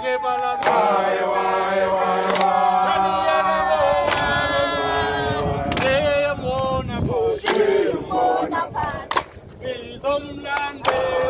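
A group of men and women singing together in unison, with sharp hand claps roughly every second and a half to two seconds.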